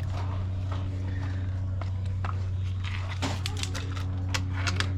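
Scattered light clicks and taps of hand work on an engine under teardown, bunched in the second half, over a steady low hum.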